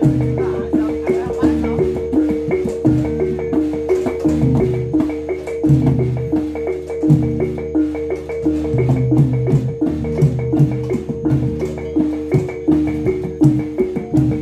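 Javanese gamelan playing a jatilan dance accompaniment: struck bronze pot gongs ringing out a fast, repeating pattern of notes over a steady sustained tone, with sharp percussive strokes throughout.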